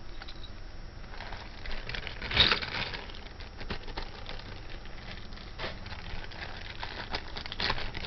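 Small plastic bags crinkling and rustling, with light clicks of jewelry being handled; the loudest rustle comes about two and a half seconds in.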